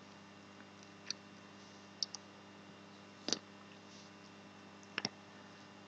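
Faint computer mouse clicks, about six at irregular intervals, some in quick pairs, over a low steady hum.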